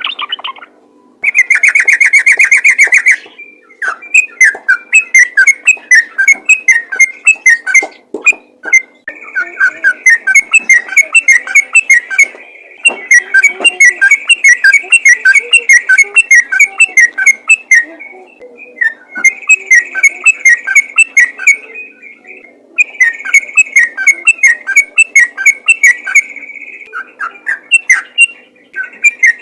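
Yellow-vented bulbul (trucukan) singing loud, fast 'ropel' song: rapid runs of short bubbly notes in phrases of a few seconds, broken by brief pauses, with a dense buzzy stretch about a second in.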